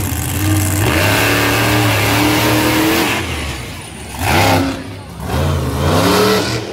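Monster truck engine running loud and steady as the truck drives across a dirt arena. In the second half the driver revs it twice, the pitch sweeping up with each rev and dropping back between them.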